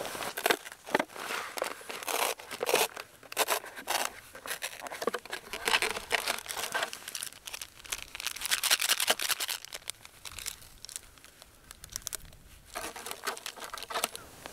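Crinkling and tearing of instant cup-noodle packaging: the lid peeled back and a seasoning sachet torn open and emptied into the cup. A run of irregular sharp rustles, with a short lull about two-thirds through before the rustling starts again.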